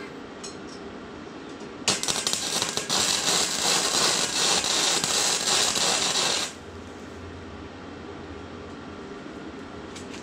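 Arc welding: one continuous bead of about four and a half seconds, an even, dense crackling sizzle that starts about two seconds in and cuts off abruptly when the arc is broken.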